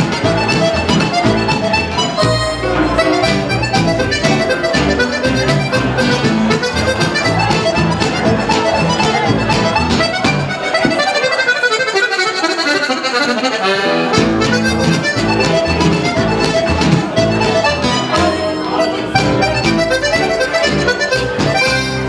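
French-Canadian traditional folk tune led by a diatonic button accordion, with guitar and upright bass accompanying in a steady dance rhythm. The bass drops out for a few seconds about halfway through, then comes back in.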